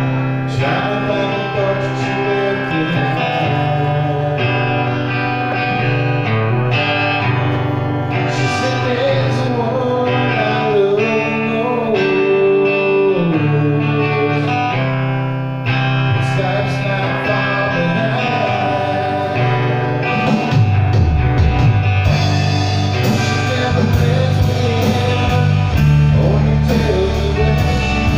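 A live rock band playing a slow song, led by electric guitar. The band gets fuller and louder about twenty seconds in.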